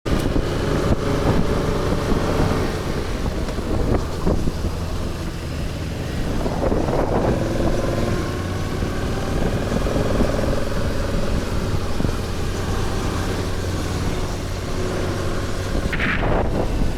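Motorcycle engine running under way, with wind and road noise over the microphone; the engine pitch rises and falls gently a few times.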